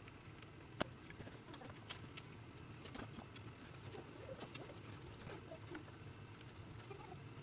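Quiet handling sounds: scattered light clicks and taps, the sharpest about a second in, from hands working at a small dirt bike's carburetor and fuel hose, over a low steady hum.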